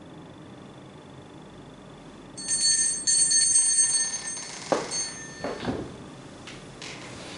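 Altar bells shaken in a bright ringing peal that starts about two and a half seconds in and stops after about two and a half seconds, rung at the priest's Communion during Mass.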